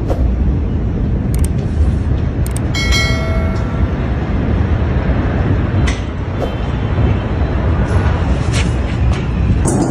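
Continuous low rumble from a massive ammonium nitrate explosion, picked up on a phone, with scattered sharp crackles and clicks and a brief pitched tone about three seconds in.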